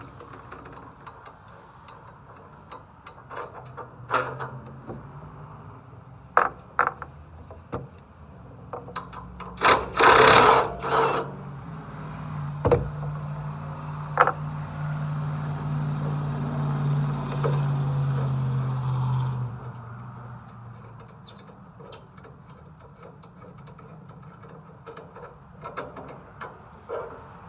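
Workshop handling of tools and metal parts: scattered knocks, clicks and rattles, with a louder noisy burst about ten seconds in and a low steady hum through the middle that fades out about twenty seconds in.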